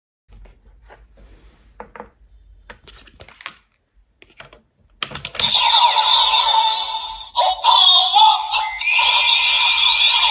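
Faint plastic clicks and knocks from handling the DX Gotchard Driver toy belt. About five seconds in, its built-in speaker starts playing loud electronic sound effects and music, with steady high tones and sweeping pitches.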